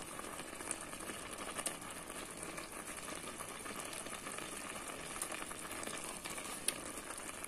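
Rice cooking in coconut milk in a stainless steel pot on a low flame: a steady bubbling hiss, with a few sharp clicks of a wooden spoon stirring against the pot.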